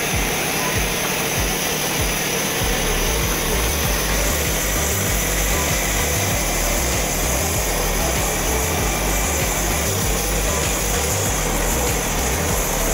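Gas torch flame burning with a steady hiss against a brass radiator filler neck and copper upper tank, heating the joint for soldering; a low rumble joins about three seconds in.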